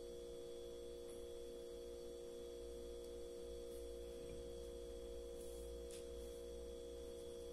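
Faint, steady electrical hum made of a few constant tones, unchanging throughout, with a faint click about six seconds in.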